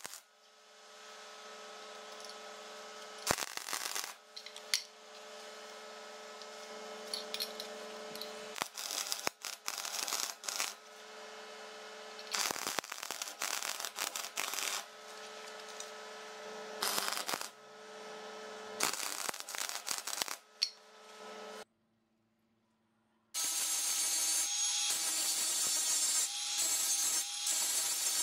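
Stick (arc) welding: the arc crackles in several short runs of a second or two over a steady hum. After a short silence near the end, an angle grinder starts and grinds steel, a louder steady high-pitched grinding noise.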